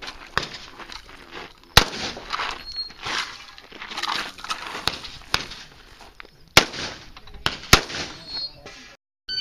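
Shotgun fire at close range: a loud blast about two seconds in, two more near the end about a second apart, and fainter sharp cracks in between.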